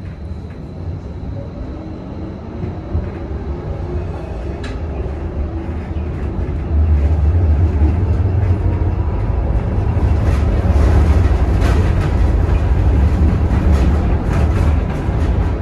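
Electric tram car heard from inside the passenger cabin while running, a steady low rumble of motors and wheels on rails that grows louder, stepping up about seven seconds in, with short clicks and rattles from the track over the later part.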